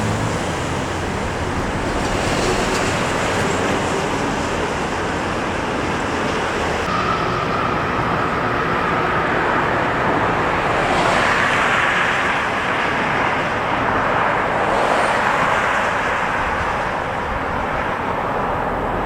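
Road traffic going by: a steady rush of tyres and engines that swells as vehicles pass, with a brief steady whine shortly before the middle.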